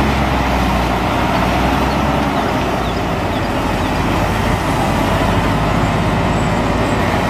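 Heavy diesel cargo truck engine running steadily as the truck moves slowly forward, a loud low engine sound. The low part is a little stronger in the first half.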